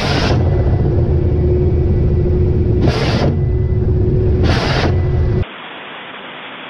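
Ka-52 attack helicopter running with a steady low rumble and hum, as rockets are fired from its wing pod three times, each launch a short hissing rush. About five seconds in, the sound cuts to a quieter steady hiss.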